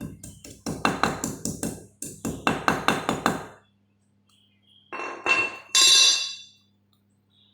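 Two quick runs of light hammer taps on a small metal part, about seven blows a second, then a short ringing metallic scrape near the end.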